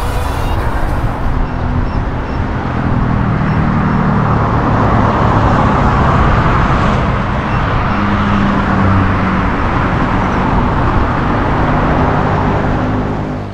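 Road traffic noise: a steady rushing of vehicles and tyres on the road, with faint low engine hum.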